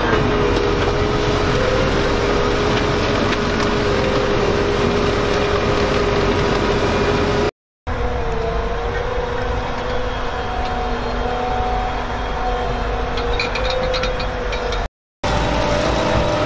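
Ropa Tiger 6S sugar beet harvester running at work, a steady drone of its diesel engine and drives with a whine held at one pitch. The sound breaks off briefly twice, about seven and a half and fifteen seconds in.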